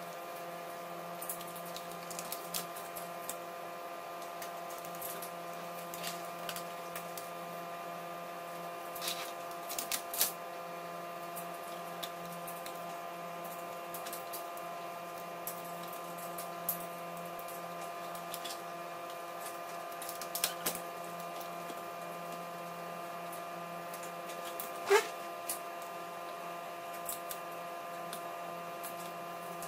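Light clicks and taps of hands handling laptop parts, the metal chassis frame and ribbon-cable connectors, scattered throughout, with one louder sharp snap near the end. Underneath runs a steady hum made of several constant tones.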